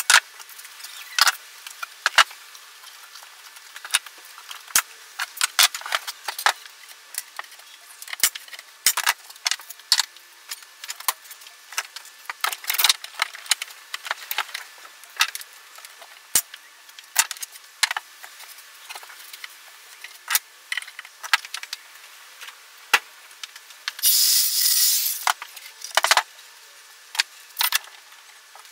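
Metal clicks, clinks and knocks of pipe clamps being slid along their black pipes and tightened against plywood, scattered irregularly throughout. A hiss-like burst lasting about a second and a half comes near the end.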